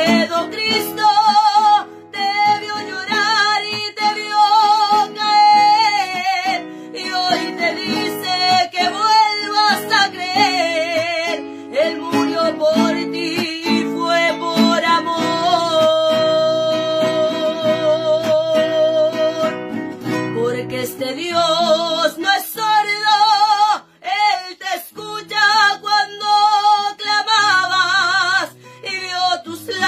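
A woman singing a slow song while strumming an acoustic guitar, with one long held note with vibrato about halfway through.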